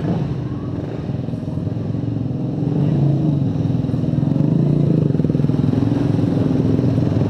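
A motorcycle engine running at a low, fairly steady speed, growing louder over the first three seconds and then holding steady.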